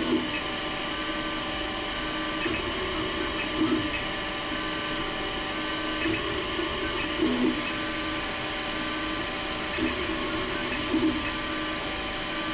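A 3D printer running a print: a steady motor hum with shifting tones that start and stop as the print head moves. Brief louder bumps come in pairs about every three to four seconds.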